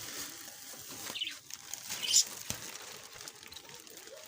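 Faint rustling and light clicks of handling, with a couple of short high chirps from small cage birds.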